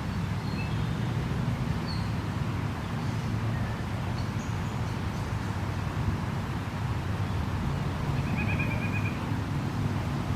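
Outdoor ambience: a steady low rumble of distant traffic under a soft even hiss, with a few short, high bird chirps scattered through and a brief bird trill about eight seconds in.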